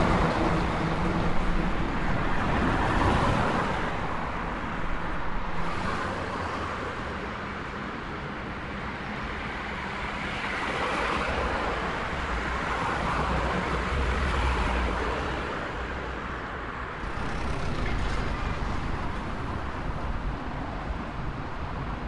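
Urban road traffic: a continuous wash of cars passing one after another, swelling and fading as each goes by. An engine hum fades out about a second in.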